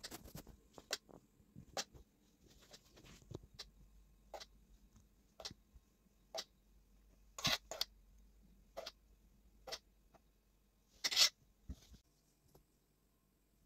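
Metal spoon clinking and scraping against a glass cup and mixing bowl while spooning soft cheesecake filling: a dozen or so irregular sharp clicks, the two loudest about seven and a half and eleven seconds in.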